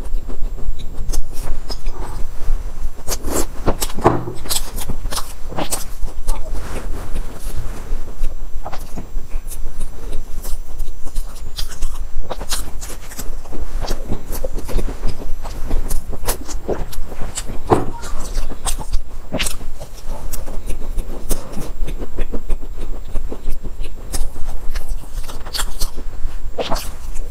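Close-miked chewing and biting of soft, flaky pastries: irregular crumbly crackles and wet mouth clicks over a steady low hum.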